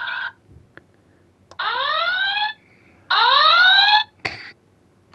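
Electronic alarm sound effect from the Playmates Star Trek Enterprise NCC-1701 toy ship's speaker: a rising whoop played twice, about a second and a half apart, with a couple of short clicks between.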